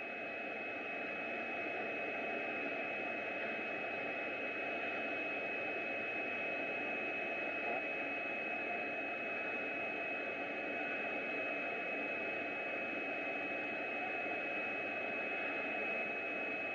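Steady hiss like static, with a constant high-pitched tone running through it. No separate taps or machine strokes stand out.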